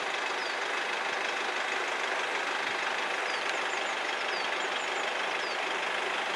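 Steady outdoor background noise with no rise or fall, scattered with a few faint, short, high chirps.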